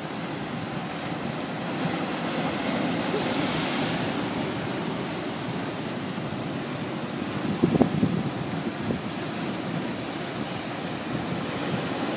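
Heavy Atlantic surf breaking and washing over rocks, a continuous churning rush with wind buffeting the microphone. It swells briefly louder about eight seconds in.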